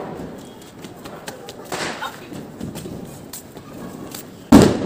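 Diwali firecrackers going off: a softer bang about two seconds in and a loud, sharp bang near the end, with faint scattered pops in between.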